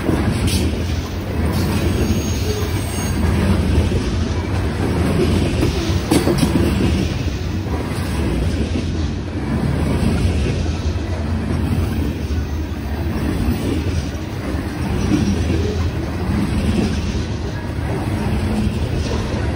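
Freight train's covered hopper cars rolling past close by: a steady rumble of steel wheels on rail, with irregular clicks and knocks from the wheels and trucks and a faint high wheel squeal about two to three seconds in.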